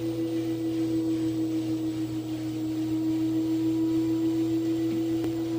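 LG washing machine on its spin cycle giving off a steady, pure humming tone that holds one pitch, the new weird noise on spin.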